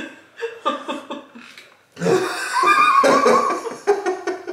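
A woman laughing: short bursts at first, then a louder, high-pitched stretch of laughter from about two seconds in.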